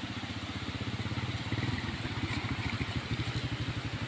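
Small underbone motorcycle engine running at low speed as it rides past over a rough road. Its exhaust pulses evenly and grows a little louder as it draws near.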